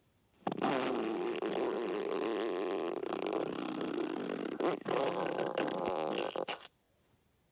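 A long stomach growl: a wavering, rumbling growl lasting about six seconds that starts about half a second in and cuts off suddenly.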